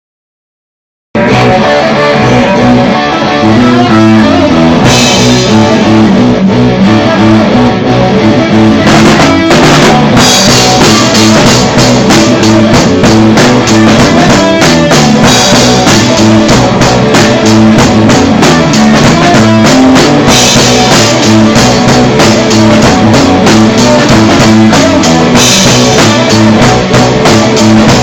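Punk rock band playing an instrumental intro on guitar and drum kit, starting abruptly about a second in; the drums grow busier about nine seconds in. No vocals.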